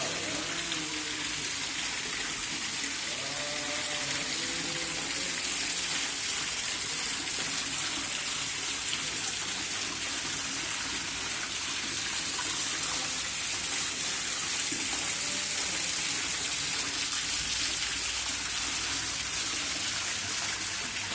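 Decorative fountain running: small pump-driven water jets and a falling sheet of water splash steadily into a shallow pool, a constant hiss.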